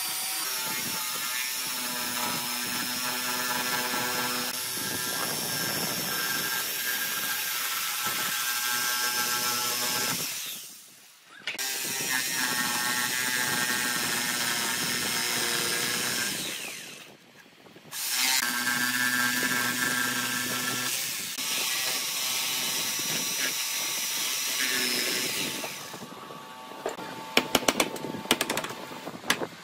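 Makita jigsaw running and sawing through a pine board, with a steady whine that stops twice briefly as the saw is lifted and repositioned. Near the end the saw gives way to a series of sharp knocks as a chisel chops out the notch.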